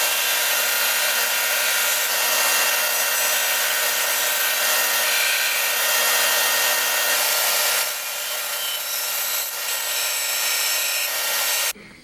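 Band saw running and cutting wood, a steady motor whine under the rasp of the blade, a little quieter from about eight seconds in and stopping suddenly just before the end.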